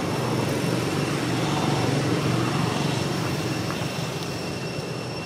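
Low rumble of a passing vehicle's engine, growing to its loudest about two seconds in and then fading away. Two faint steady high-pitched tones sound throughout.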